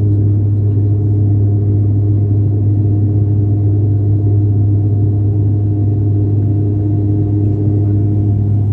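Cabin drone of a high-wing turboprop airliner in flight: the engines and propellers run steadily, giving a loud, even low propeller hum with a few fainter steady tones above it.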